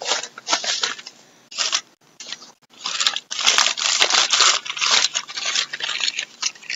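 Packaging being unwrapped by hand: irregular bursts of rustling and crinkling, busier and more continuous in the second half.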